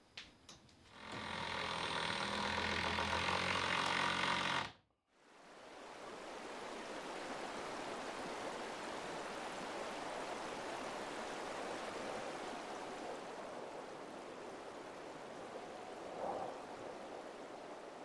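A motor-driven tool runs steadily for about four seconds with a constant hum, then cuts off abruptly. After a moment a steady, even hiss of outdoor ambience in snowy woods fades in and holds.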